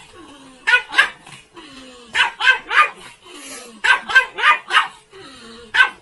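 A dog barking in quick clusters of two or three sharp barks, with short falling whines between the clusters.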